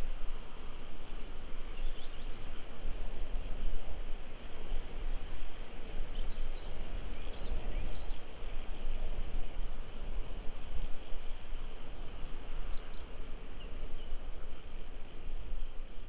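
Steady outdoor ambience with a low rumble, and scattered faint high bird chirps.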